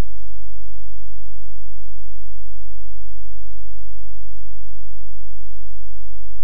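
Loud, steady low electrical hum, a mains hum in the microphone and sound-system chain, with no speech over it.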